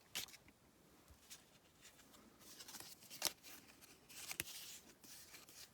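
Faint rustling of cardstock die-cut pieces being handled and leafed through, with a few light sharp clicks as pieces tap together, strongest about three seconds in and again a little after four seconds.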